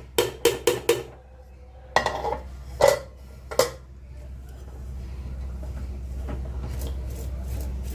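A spoon clinking and knocking against the cooking pot as cooked rice is stirred. There is a quick run of clinks at the start, a few more single knocks over the next few seconds, then only quieter stirring over a steady low hum.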